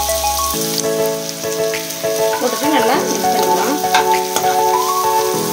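Chopped onions sizzling in hot oil in a non-stick kadai, with a spatula stirring and scraping through them. Background music of mallet-like notes plays underneath.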